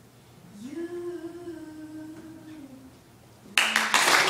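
A girl's solo singing voice holds a long final note that dips in pitch as it ends. About three and a half seconds in, the audience suddenly breaks into loud applause.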